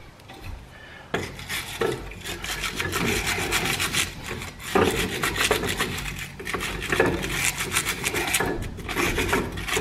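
Hand wire brush scrubbing the brake caliper's pad contact surfaces clean, in quick back-and-forth strokes of the bristles on metal that start about a second in.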